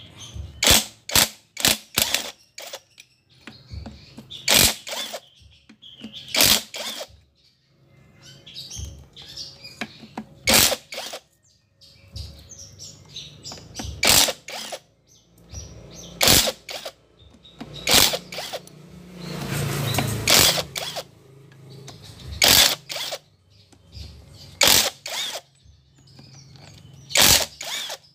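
Sharp metal knocks and clanks from a Yamaha Jupiter MX engine being taken apart. Several quick strikes come in the first couple of seconds, then single knocks every two seconds or so, with a longer rattling stretch about twenty seconds in.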